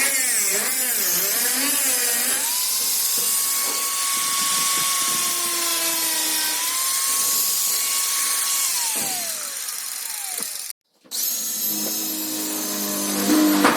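Handheld power tool running under load on sheet metal, its whine wavering in pitch, then winding down about nine seconds in. It cuts out abruptly for a moment and runs again.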